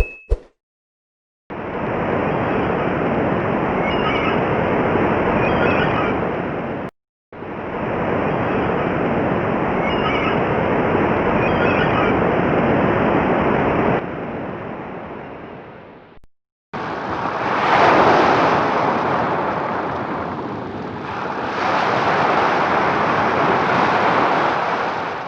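Three separate recordings of sea surf, one after another, each cut off abruptly. The first two are a steady wash of waves with a few faint bird chirps. The last swells and falls as waves break about a second in and again near the end.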